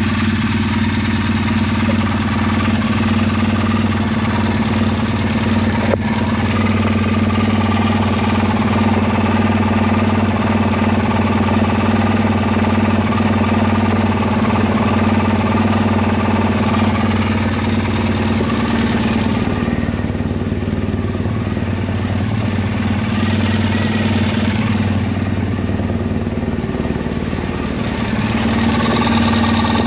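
2005 Triumph Bonneville's air-cooled parallel-twin engine running steadily just after being started, warming up. Its note thins and drops slightly for several seconds about two-thirds of the way through, then comes back near the end.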